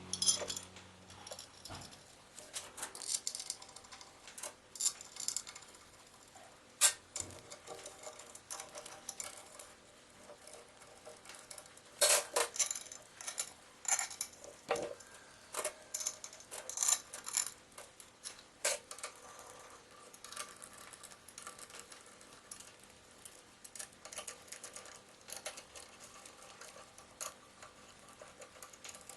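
Scattered light metallic clinks and taps of tools and engine parts being handled during engine assembly, with a few louder knocks about seven and twelve seconds in.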